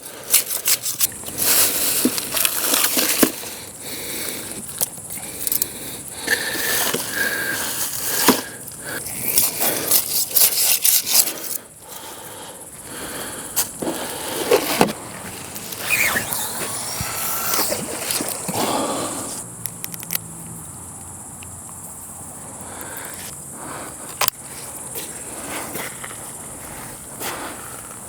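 Irregular close scraping, crackling and clicks, busier in the first half and thinning out after about twenty seconds, over a steady high hiss.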